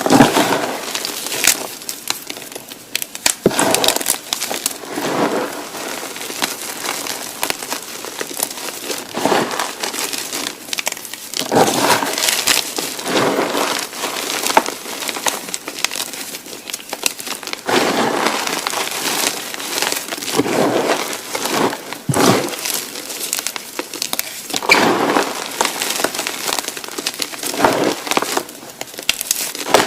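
Blocks of gymnastic chalk being crushed and crumbled by hand, a dense gritty crunching that swells in repeated squeezes every second or two, with sharp cracks as pieces break.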